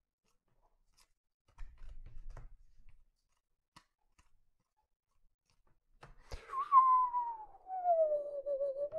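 A person whistling one long falling note that bottoms out and starts to rise again near the end, an impressed whistle at a card being pulled. Before it, faint rustling of trading cards being handled.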